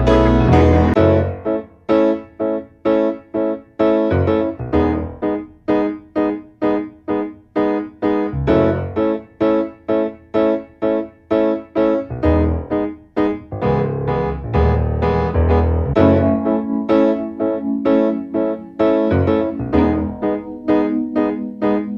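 Background music: a piano or electric-piano tune with a steady, bouncy rhythm of short notes.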